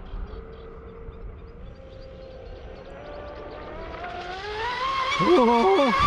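Traxxas M41 radio-controlled speed boat's electric motor whining at speed on a 6S battery. The whine rises in pitch and grows loud over the last few seconds as the boat comes close, its pitch wavering quickly near the end.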